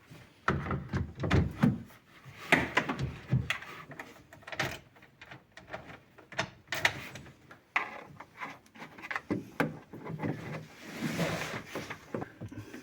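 Irregular clicks, knocks and rustling of parts and cables being handled, as the e-bike conversion kit's wiring connectors are fitted and plugged together.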